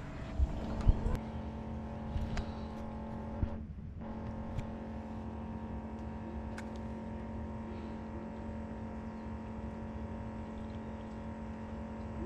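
An engine runs steadily at an unchanging pitch, with a few light clicks and knocks in the first few seconds.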